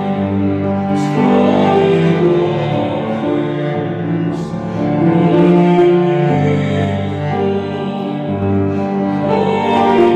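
Vocal ensemble singing a slow song with cello and piano accompaniment, long held notes and chords.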